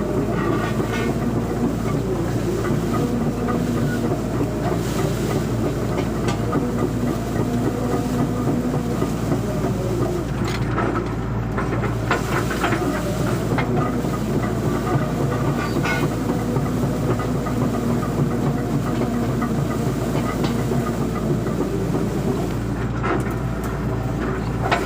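Excavator diesel engine running steadily under work, with scattered clanks and crackling knocks from the machine working brush.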